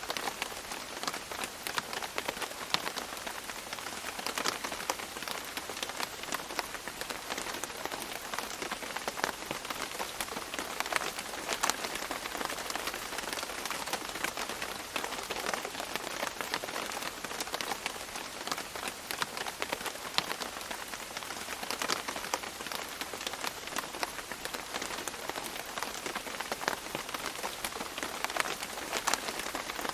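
Steady rain falling on leaves, a constant hiss dotted with many separate drops tapping and dripping.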